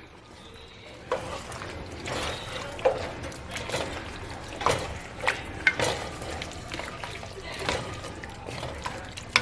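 A spoon stirring beef and vegetables with freshly added red cooking wine in a Dutch oven: wet, sloshing stirring with irregular knocks of the spoon against the pot.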